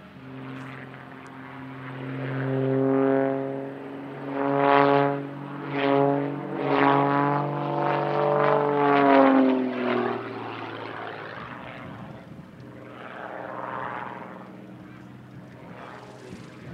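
A Douglas C-47 Dakota's two Pratt & Whitney R-1830 radial engines running through the landing roll: a deep, many-toned drone that swells and fades several times. About ten seconds in the pitch drops slightly and the engines go quieter as the aircraft slows to a taxi.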